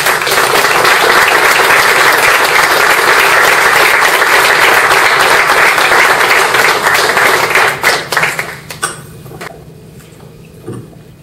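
Audience applauding, starting at once and going steadily for about eight seconds, then dying away into a few scattered claps. A single low thump near the end.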